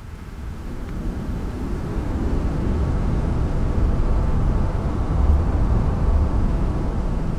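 Ocean waves washing in: a continuous rush of surf with a deep rumble, swelling over the first few seconds and then holding steady.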